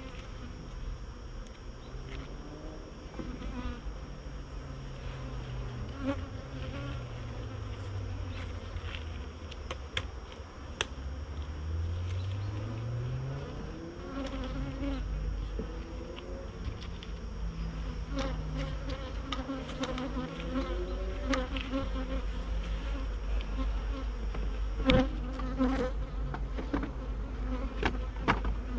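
Honeybees buzzing around an open hive, single bees flying close past the microphone so the hum rises and falls in pitch. A few sharp clicks and knocks come through, the loudest about 25 seconds in.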